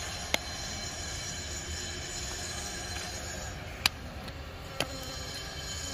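Small hand trowels digging into hard, stony soil while planting grass, giving three short, sharp clicks over a steady outdoor hiss and low rumble.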